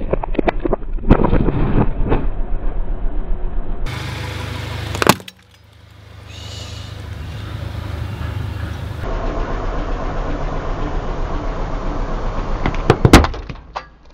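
A car tyre rolling over objects on dirt ground and crushing them, with crunching and crackling at first and one loud sharp crack about five seconds in. Later the car runs with a steady low drone, and a few loud cracks come near the end as something else breaks under the tyre.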